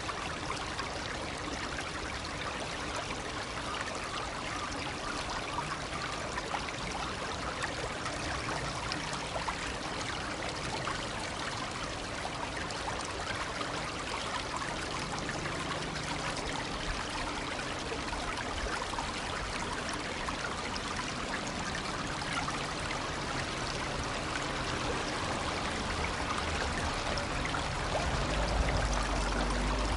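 Shallow stream babbling and trickling steadily over stones. A low rumble joins in near the end.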